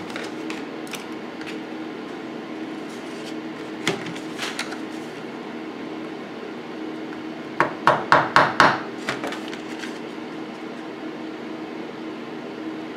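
Light hammer taps on a nail pin being set into a lead toy figure: one tap about four seconds in, then a quick run of about half a dozen taps a little past the middle. An electric fan hums steadily under the taps.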